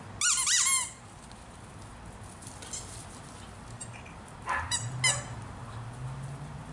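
Italian greyhound barking in high-pitched yips during ball play: a quick run of yips right at the start, then two short yips about four and a half and five seconds in.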